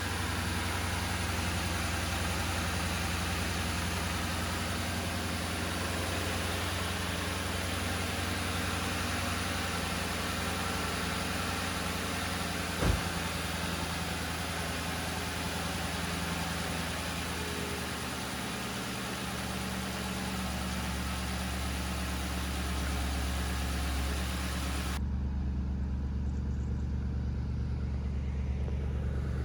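Ford Crown Victoria's 4.6-litre V8 idling steadily, with one sharp click about halfway through. Near the end the sound abruptly turns duller, losing its hiss, with a lower, heavier hum.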